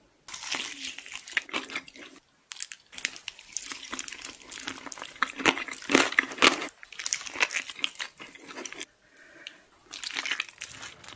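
Chewing of crunchy food, a dense run of crisp crackling crunches, with a short break about two seconds in and a quieter stretch about nine seconds in.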